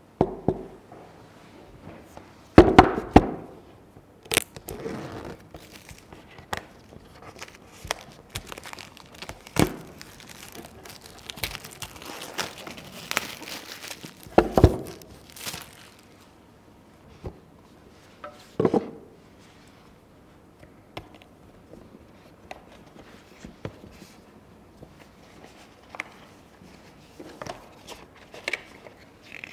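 Clear plastic shrink wrap crinkling and tearing as it is peeled off a smartphone box, mixed with several sharp knocks and thumps of the cardboard box and its inner flaps being handled and opened. The crinkling is densest about halfway through; the later part is quieter rustling of card and paper.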